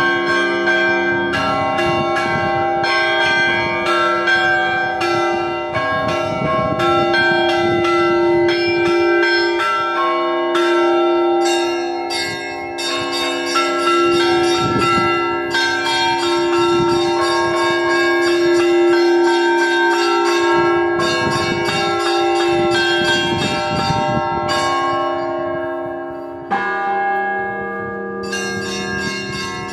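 Russian Orthodox church bells ringing a peal: rapid, repeated strikes of the small and middle bells over a deep tone that rings on from a larger bell. Near the end the high bells briefly thin out, then the ringing picks up again in a new pattern.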